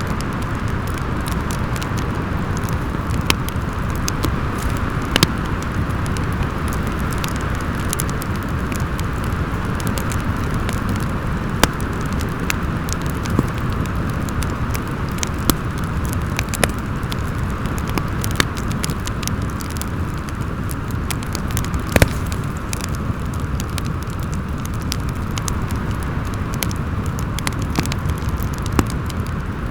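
Steady wind noise with a low rumble, mixed with a wood fire crackling: irregular sharp pops every few seconds, the loudest about a fifth of the way in and twice more later on.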